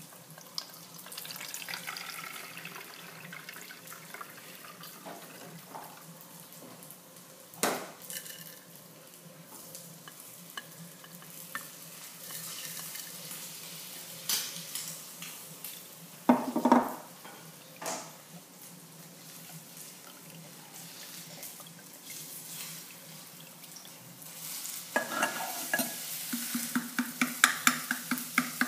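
Vinegar-and-eggshell calcium solution trickling from a glass jar through a metal mesh strainer into another jar, with a few sharp clinks of glass against the strainer. Near the end, rapid clinking and scraping of a metal utensil against a glass jar full of eggshells.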